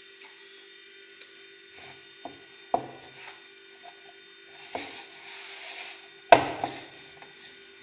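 Hands kneading soft brioche dough in a bowl: irregular slaps and knocks, about five of them with the loudest near the end, and the dough rubbing and squelching in between.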